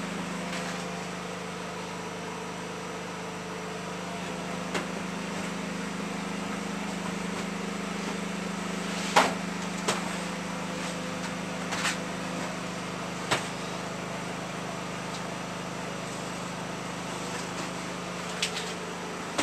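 Steady low mechanical hum, with a handful of sharp knocks and clicks scattered through it, the loudest about nine seconds in.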